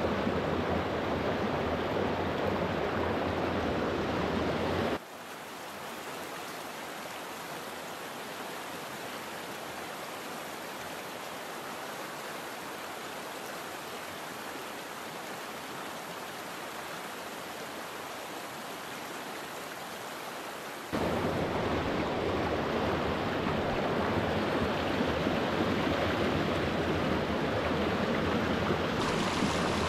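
Rushing water of a small rocky trout stream tumbling over riffles and small cascades, a steady rush. About five seconds in it drops suddenly to a softer, thinner rush, and it comes back as suddenly at full strength about sixteen seconds later.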